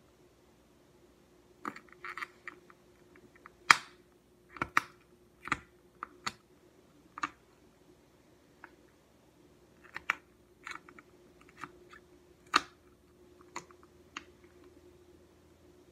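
Silicone pop-it fidget toy, its bubbles pressed one at a time by fingers: about twenty sharp, irregular pops starting about a second and a half in. A faint steady hum runs underneath.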